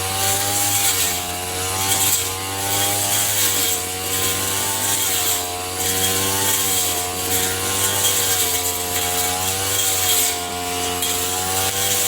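A small motor-driven tool running steadily under varying load, its pitch dipping and recovering every second or two as the load comes and goes.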